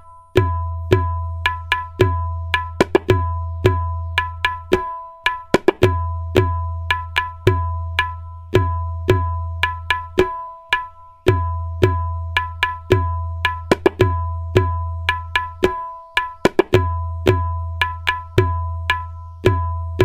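Tabla playing a looped jhaptaal, the ten-beat cycle, at medium tempo with the dayan tuned to E. Sharp ringing treble strokes run over the bayan's deep resonant bass. The bass drops out for a couple of beats at the khali in each cycle, which repeats about every five and a half seconds.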